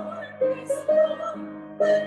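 A slow song: a singing voice holds sustained notes over soft accompaniment.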